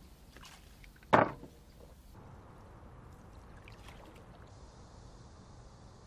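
Drinking from a plastic soda bottle, with one sharp, loud liquid sound about a second in.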